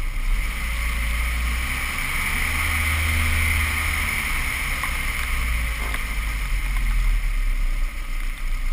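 Mazda Miata's four-cylinder engine running at low speed, with tyre noise and wind buffeting on the low-mounted microphone, as the car rolls slowly up behind other cars; the rumble eases near the end.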